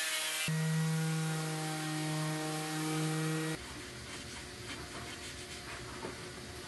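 A small handheld corded power tool runs at a steady pitch, changing tone about half a second in and stopping suddenly at about three and a half seconds. After that comes faint scraping and light ticks of a knife paring out a hinge mortise in wood, over a low hum.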